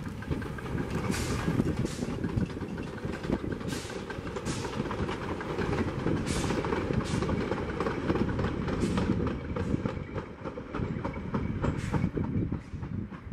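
FCL 353 narrow-gauge steam locomotive and its coaches running past and away, a steady rumble of wheels on rail with scattered clacks over the rail joints.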